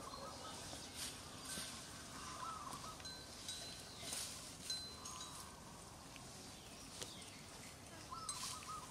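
Faint outdoor ambience with a few short, wavering high-pitched calls and scattered light clicks.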